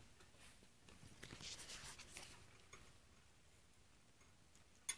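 Near silence, with faint small clicks and crackling for about a second, then one sharp click near the end.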